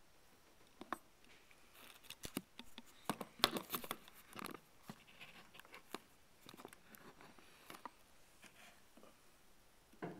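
Plastic hat (pintle cap) of a Bosch fuel injector being pushed down and twisted back and forth in a bench hole to seat it, making faint scraping and small clicks, busiest in the first half.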